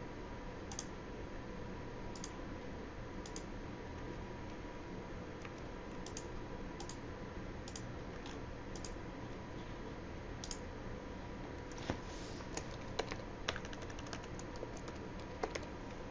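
Computer mouse clicks and keyboard keystrokes: single clicks every second or so, then a quick run of typing near the end, over a faint steady hum.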